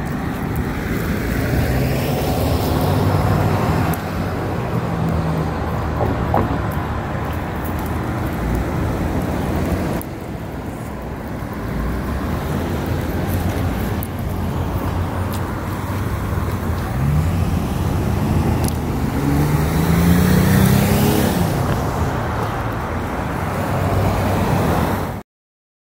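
Street traffic: cars driving past with engine hum and tyre noise, one engine rising in pitch as it speeds up about two-thirds of the way through. Cuts off suddenly near the end.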